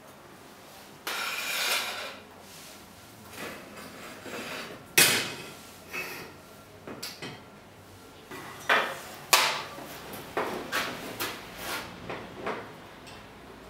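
Metal parts and a heavy steel block being handled on a steel-topped workbench: a short scrape about a second in, then a string of sharp clanks and knocks.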